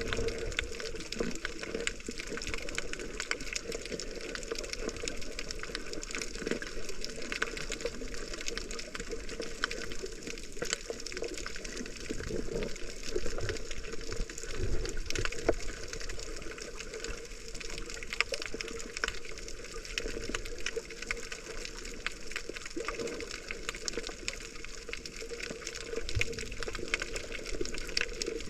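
Water moving and bubbling around a GoPro in its waterproof housing while snorkeling, steady and muffled, with many scattered sharp clicks and crackles.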